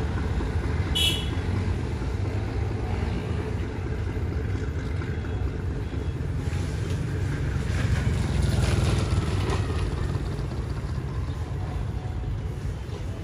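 Steady low engine rumble of street traffic and a diesel locomotive running. A brief high squeak comes about a second in, and the rumble grows louder for a couple of seconds past the middle.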